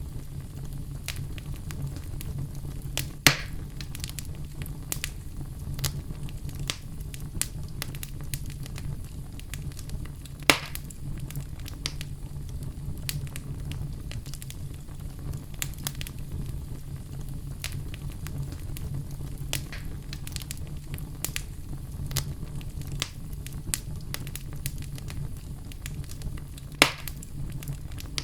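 Oak logs burning in a fireplace, crackling steadily with many small ticks over a low steady rumble, and three loud sharp pops, at about 3, 10 and 27 seconds in.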